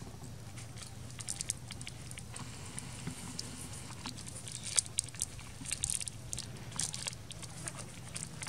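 Scattered light crackles and crunches from monkeys moving and handling things on dry ground, the sharpest about five seconds in, over a steady low hum.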